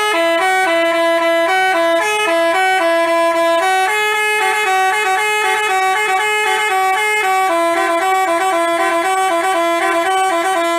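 Bus 'telolet basuri' musical horn playing a quick tune of short stepped notes, loud and unbroken, cutting off at the end.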